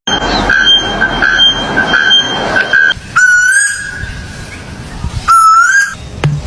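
A bird whistling loudly: a long steady whistle at one pitch that pulses for about three seconds, then two shorter whistles, each rising slightly at the end.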